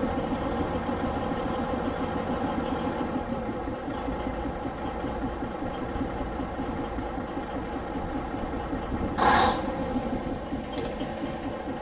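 1941 Industrial Brownhoist 250-ton railroad wrecking crane running steadily as it hoists a railcar truck off a trailer, with a short sharp burst about nine seconds in.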